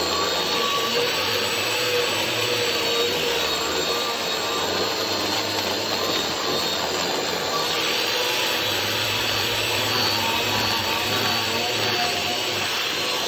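Chainsaw running steadily and cutting firewood, a continuous motor whine with the saw's pitch shifting about eight seconds in as the load changes.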